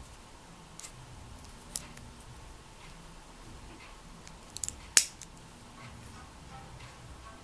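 Small metal clicks from a watch's folding clasp being worked by hand: a few light ticks, then one sharp snap about five seconds in.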